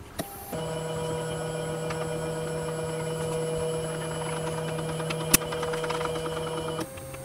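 Stepper motors of a homemade Arduino grbl pen plotter whining at one steady pitch as the paper bed is driven along its threaded rods. The whine starts abruptly about half a second in and stops abruptly near the end, with a single sharp click about five seconds in.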